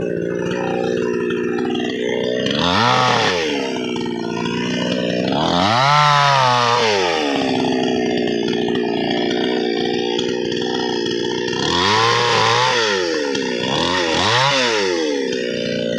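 Chainsaw engine running, revving up and dropping back about four times, with steadier running in between.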